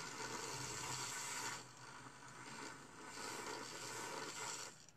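Handheld battery milk frother whirring as it froths milk, a steady buzzing whir that dips briefly twice and cuts off just before the end, leaving the milk frothy.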